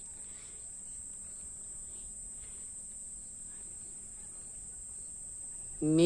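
Night insects, such as crickets, chirring without a break in a steady high-pitched drone. No thunder is heard.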